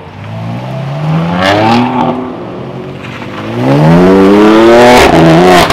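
BMW M4 coupé accelerating hard, its engine revs rising twice, the second time louder. A sharp crack at a gear change follows near the end, and the revs then drop.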